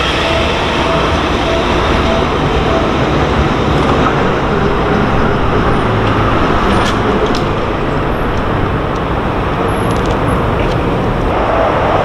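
Seibu Shinjuku Line electric commuter train running past close by at a level crossing, its last car going by at the start, followed by steady loud running noise. A level-crossing warning bell rings repeatedly at the very start and again near the end.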